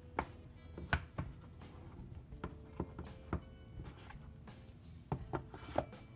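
Irregular sharp taps and clicks, about a dozen, of a smartwatch box and its packaging being handled.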